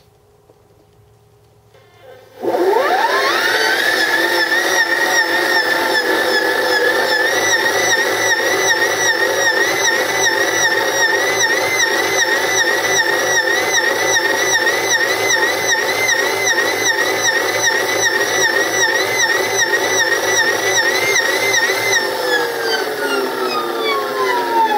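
Military starter/generator DC motor, run as a separately excited motor on a Kelly SepEx controller, spinning up with a quickly rising whine about two seconds in. It runs at a steady speed with a high whine and a regular warble, then winds down with falling pitch near the end.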